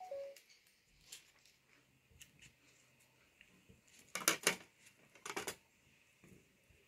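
Small knife cutting a melon into wedges: scattered crisp cuts and light clinks against a plate, with two louder crunchy bursts about four and five seconds in.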